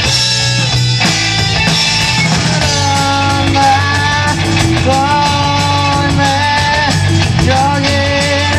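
A rock band playing live: electric guitar, bass and drums, with a lead vocal line coming in about three seconds in.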